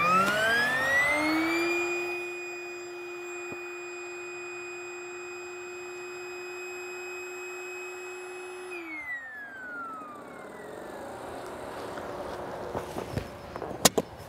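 Electric air pump inflating an inflatable boat's air chambers: its motor whine rises in pitch as it spins up, runs at a steady pitch, then falls away and stops about nine seconds in. A few sharp clicks follow near the end.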